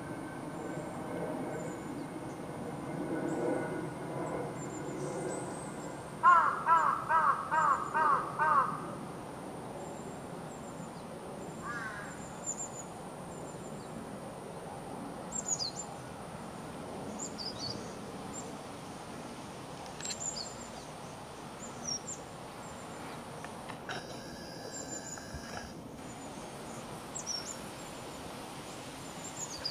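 Birds in the tree canopy: a loud run of about seven harsh calls in quick succession about six seconds in, then short, thin, high chirps scattered through the rest.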